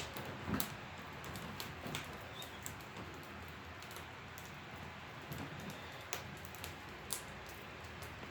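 Scattered faint clicks and ticks, a few seconds apart, over quiet room tone.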